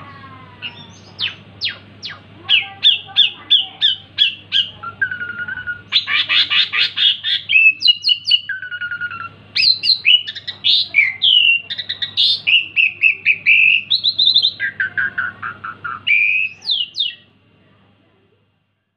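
Asian pied starling singing hard and without pause: a long run of varied whistles, sharp chirps and fast series of repeated notes, breaking off shortly before the end. A faint steady hum runs underneath.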